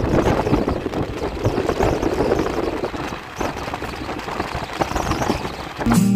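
Passenger train running, heard from an open coach door: wheels clattering irregularly over the rails under a steady rush of noise. Background guitar music comes in near the end.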